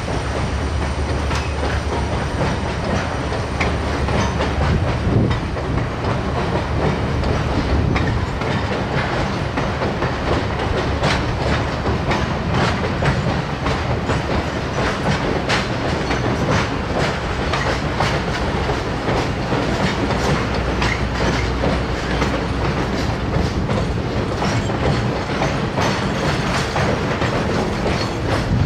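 Conway Scenic Railroad passenger coaches rolling across a steel trestle: a steady rumble of wheels on rail, broken by many irregular sharp clicks and clacks.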